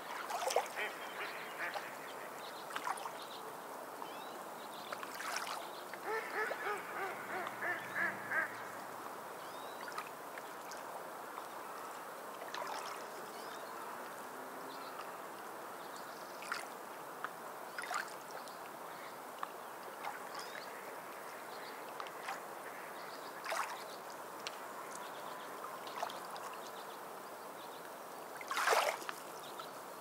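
Small sea waves washing steadily against shore rocks, with short splashes. Bird calls cut in over the wash, including a run of rapid, quacking-like calls about six to eight seconds in and a loud call near the end.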